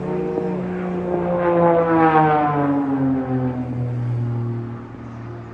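Aerobatic plane flying past, its engine note sliding steadily lower as it goes by. It is loudest about two seconds in and then fades.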